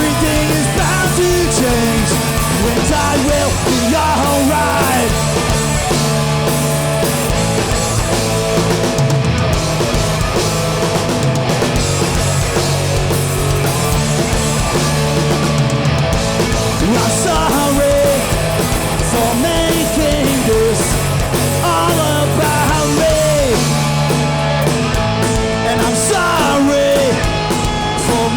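Live hardcore punk band playing an instrumental passage at full volume, with a steady low bass line and pitch-bending lines over it.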